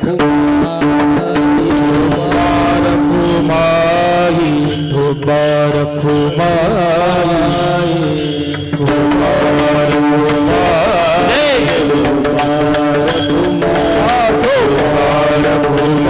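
Devotional kirtan music: a man sings long, wavering, ornamented phrases without clear words over a steady harmonium-like drone, with regular percussion strikes throughout.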